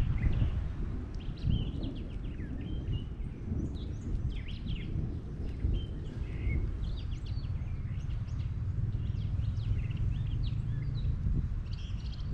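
Small birds chirping, with many short, high calls overlapping throughout, over a steady low rumble.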